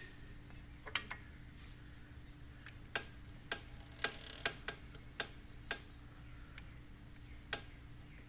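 Irregular sharp clicking from the Buell XB9R's rear belt drive as it turns, about a dozen clicks at uneven intervals over a faint steady hum. The owner considers the clicking a separate fault from the belt pulley's groan.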